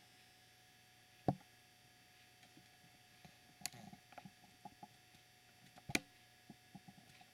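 Faint scattered clicks and ticks over quiet room tone, with a soft thump about a second in and sharper clicks near four and six seconds.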